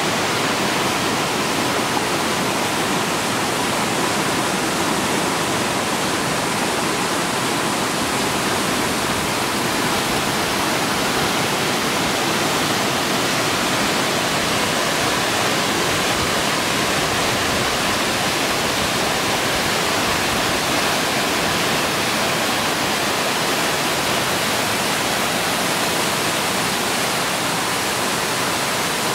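Waterfall cascading over large boulders: a loud, steady, even rush of water that does not let up.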